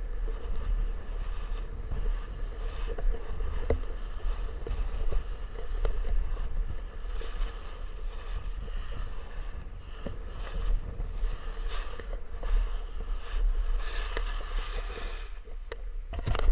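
Edges scraping and hissing over packed snow while riding downhill, with wind buffeting the microphone as a low rumble. The scraping grows louder near the end.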